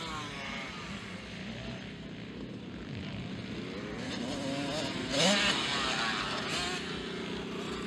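Motocross bike engines revving on the track, the pitch rising and falling with the throttle. The loudest rev climbs sharply about five seconds in.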